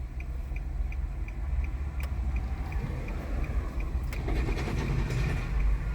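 Engine idling with a steady low rumble, heard through open car windows, mixed with road-work machinery nearby; the machine noise builds from about four seconds in. A faint quick ticking, about three ticks a second, runs through the first half.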